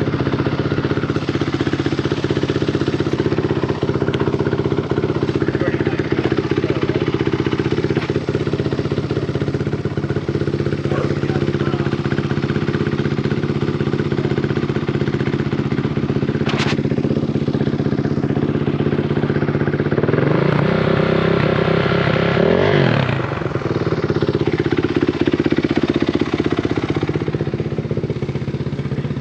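Four-stroke single-cylinder off-road engines running steadily, with a rev that rises and falls again about twenty seconds in.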